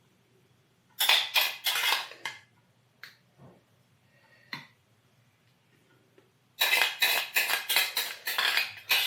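A spoon scraping and knocking against a dish, dishing out and spreading the last of the salsa: a quick cluster of scrapes about a second in, a couple of single taps, then a fast run of scraping strokes near the end.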